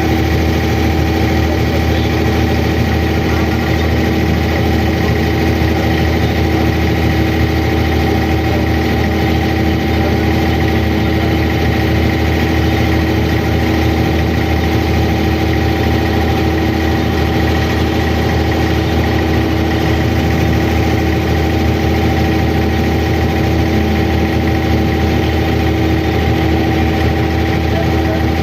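Abra water taxi's inboard diesel engine running steadily: an even drone with fixed tones and no change in pitch or speed.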